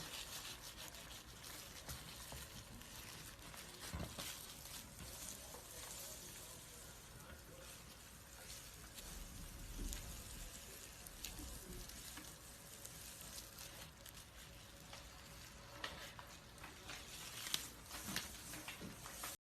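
Dry snake skin crackling and rustling as the snake sheds it: a faint, continuous fine crackle with scattered small clicks, cut off by a brief gap just before the end.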